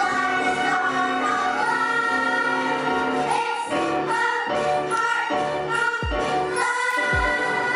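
Music with several voices singing together over instruments; a deep kick-drum beat comes in about six seconds in.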